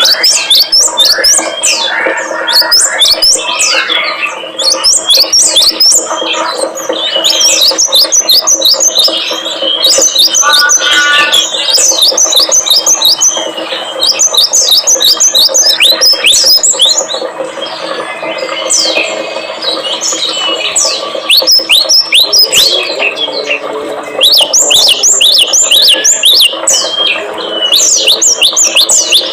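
Many small songbirds chirping and trilling at once in quick, sharp sweeps, coming in bursts throughout, over a steady low tone. It is a lure recording of songbird song, played to set caged birds singing.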